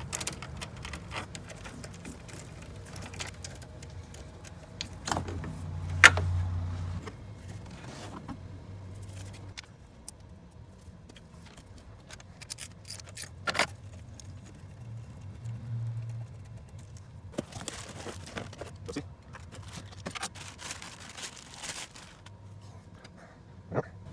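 Hand tools working on the engine: a socket and extension clicking, scraping and clinking against metal, with a sharp metallic clank about six seconds in and a few smaller knocks later.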